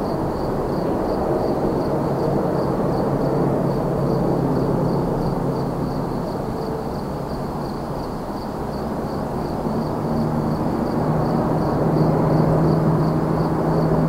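Distant highway traffic as a steady rumble that swells louder in the last few seconds, with a cricket chirping steadily at a high pitch, about three chirps a second.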